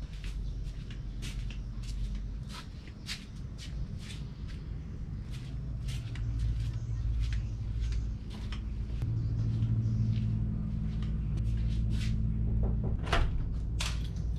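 Footsteps along a paved path, irregular sharp steps over a steady low rumble. Near the end come a few louder knocks and clatters as a wooden door is opened.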